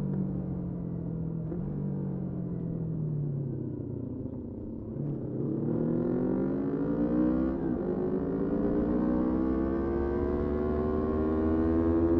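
Motorcycle engine slowing with its pitch falling, then accelerating hard from about five seconds in with the pitch climbing and getting louder, broken by a quick gear change about two seconds later.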